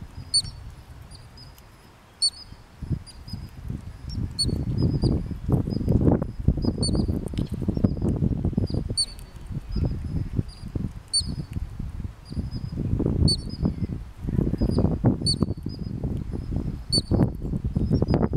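Columbian ground squirrels giving short, high-pitched alarm chirps, repeated about twice a second: a warning to the colony that a bird of prey is near. A louder, irregular low rumbling noise runs under the chirps.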